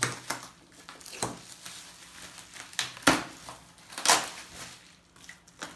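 Bubble wrap and plastic packing sheet rustling and crinkling as they are pulled back off an art panel in a wooden crate. It comes in several separate swishes, the loudest about three seconds in.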